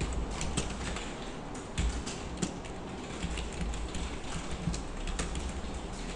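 Typing on a computer keyboard: irregular single keystrokes clicking as a line of code is entered, over a low steady hum.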